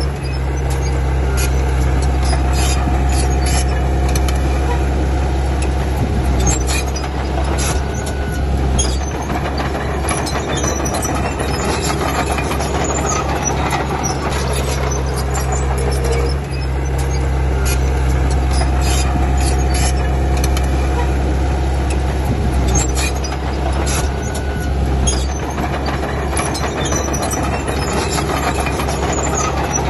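Diesel engine of a Komatsu D31P crawler bulldozer running steadily at working load, with scattered metallic clanks.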